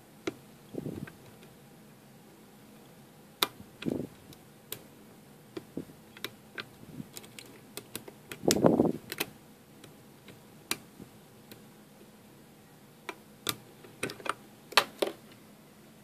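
Lock picks working the pins of an IFAM E-50 brass padlock: scattered, irregular sharp metallic clicks and ticks, with a few duller knocks from handling the lock, the loudest about halfway through.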